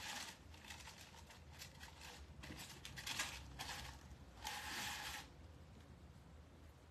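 Red plastic deco mesh rustling and crinkling in several bursts as it is handled and pulled on a wreath form, then quieter near the end.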